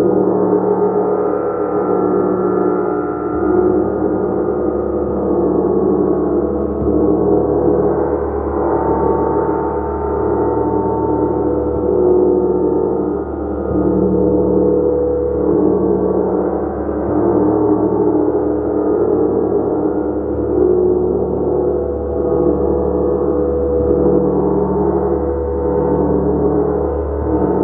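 A large gong played continuously, a dense wash of many overlapping tones that swells in gentle waves every second or two as it is kept struck, without ever dying away.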